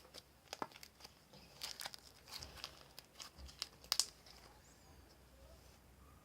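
Faint, irregular crinkling and clicking of something being handled close to the microphone, a quick run of sharp little crackles that dies away about four seconds in.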